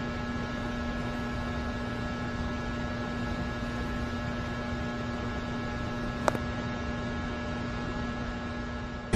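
Steady electrical hum with hiss, holding several fixed tones, and one sharp click about six seconds in.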